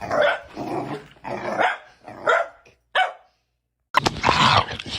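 A dog barking: five drawn-out barks about two-thirds of a second apart. After a short gap a different loud sound starts near the end.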